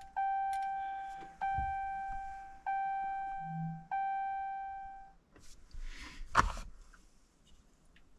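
2018 Ram 3500's cab warning chime sounding four times, about one ding every 1.25 seconds, each ringing out before the next, then stopping. A sharp knock follows about six seconds in.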